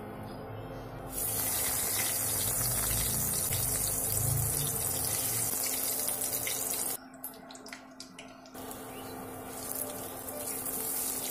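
Stuffed pumpkin-leaf fritters frying in hot oil in an aluminium wok: a loud, steady sizzle starts suddenly about a second in. Just past the middle it drops away for over a second, with a few sharp clicks, then comes back quieter as the parcels are turned with a spoon.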